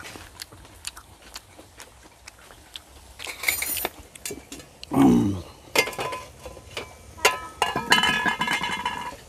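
Chopsticks and utensils clicking and clinking against dishes and a metal tabletop grill pan, in scattered separate taps. About five seconds in comes a loud, short sound that falls in pitch, and near the end a brief ringing tone.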